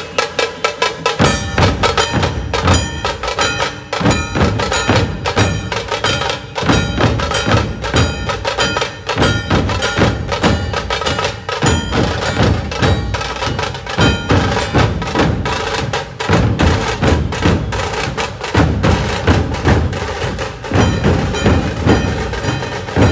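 Dhol tasha ensemble drumming a fast, driving rhythm. Sharp, cracking tasha strokes play alone at first, and the deep beats of the big barrel dhols join about a second in. The deep beats break off for a moment every few seconds while the tasha strokes carry on.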